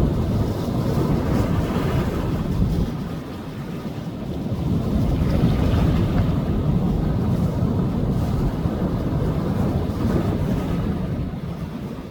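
Sea waves washing onto the beach, swelling louder about halfway through and easing again, with wind rumbling on the microphone.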